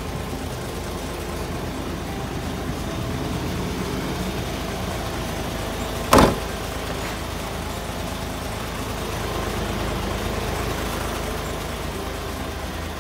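Isuzu Giga heavy truck's diesel engine idling steadily, with one loud, sharp bang about six seconds in.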